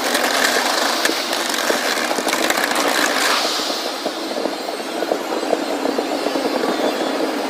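Fireworks going off in a dense, continuous wash of crackles and pops. The bright crackling eases a little after about three and a half seconds.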